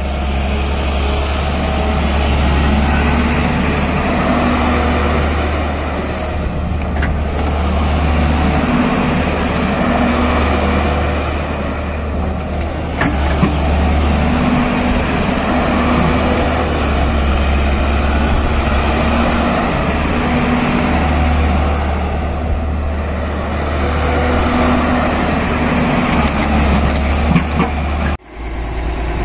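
Tata Hitachi EX210LC Super crawler excavator's diesel engine running steadily, with a strong low hum that swells and eases every few seconds. There is a brief dropout near the end.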